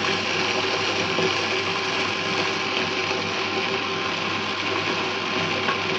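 Induction cooktop running under a steel pot of water: a steady whirring hum with an even hiss.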